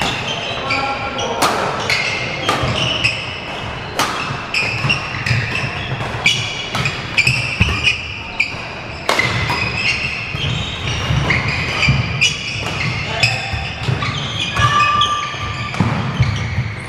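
Badminton doubles rally on a wooden sports-hall floor: repeated sharp cracks of rackets hitting the shuttlecock, with shoes squeaking and feet thudding as the players move.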